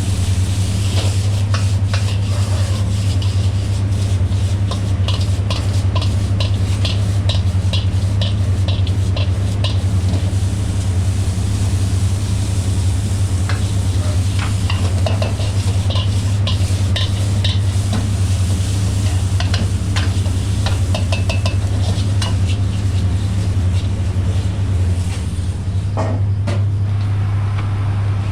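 Metal spatula scraping and clattering against a pan as fried rice is stir-fried, many short strokes over a light sizzle. A loud steady low hum runs underneath throughout.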